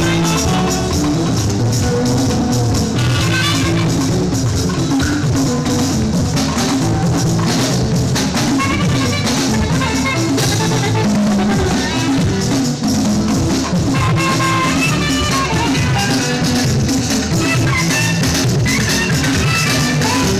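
Live band playing fuji music, with drums, bass guitar and percussion rattles in a steady groove.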